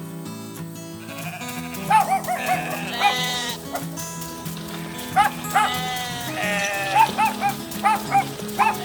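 Cartoon background music with short, high, bleat-like animal calls over it. The calls come in a few groups early on, then quickly one after another, about two a second, from about five seconds in.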